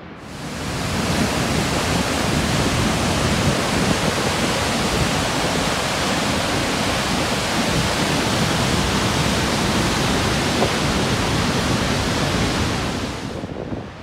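Rushing water of a large waterfall heard close to its brink: loud and steady. It swells in within the first second and fades away near the end.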